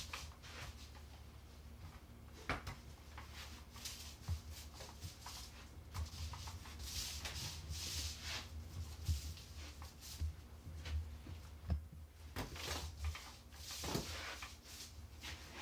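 Glue being spread over a countertop for laminate: repeated swishing, rubbing strokes with several sharp knocks in between, over a low handling rumble.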